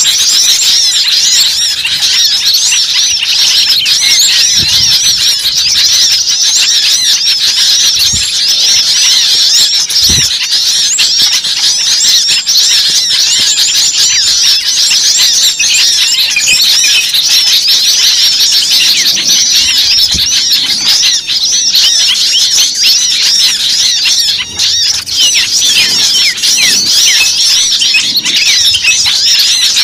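Many small birds chirping and squealing at once in a continuous chorus of overlapping short calls.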